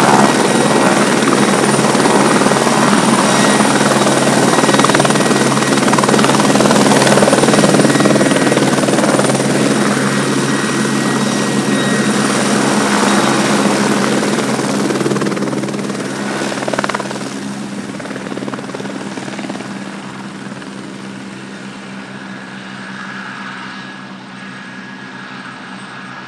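Airbus Helicopters H145 D3, a five-bladed twin-turbine helicopter, in flight after takeoff: a steady rotor and engine sound with a thin high whine. It fades steadily over the second half as the helicopter flies away.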